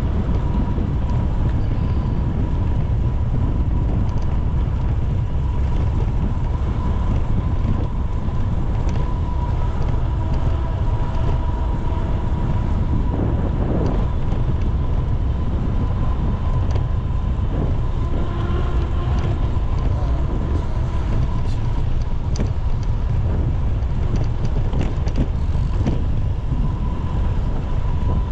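Wind rushing over the microphone of a moving bicycle, with road noise underneath and a faint steady high whine.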